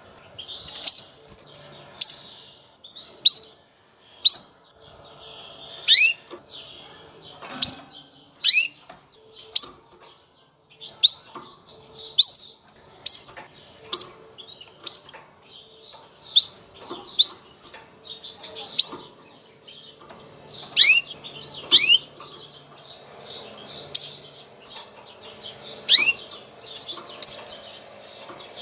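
Female domestic canary giving its mating call: short, sharp chirps that sweep down in pitch, repeated about once a second.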